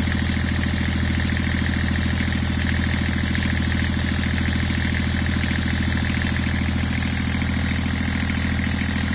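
Beta Marine 28 hp three-cylinder marine diesel idling steadily at tick-over, warming up from a cold start.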